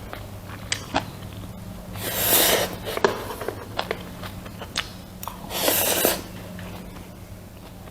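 Close-miked eating sounds: short chewing clicks and mouth smacks, with two longer noisy swells about two and five and a half seconds in, over a steady low hum.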